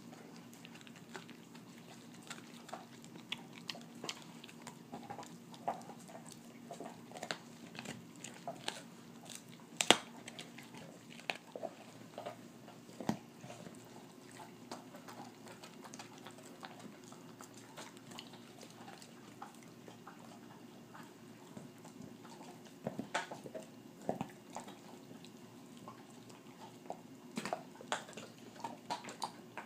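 A dog gnawing a raw beef rib bone: irregular crunches and clicks of teeth on bone, with one sharp crack about ten seconds in and bursts of crunching near the end.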